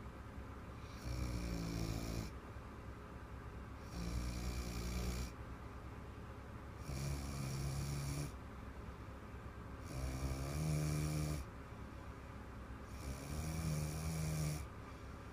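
A little girl snoring in her sleep: five big snores at an even pace, about one every three seconds, each lasting a little over a second.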